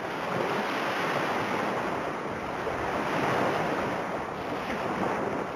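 Sea waves washing, with wind buffeting the microphone: a steady, even rush of noise.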